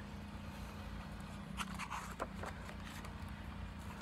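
Faint rustling and light clicks of a picture book's pages being handled, a few short ones about halfway through, over a low steady hum.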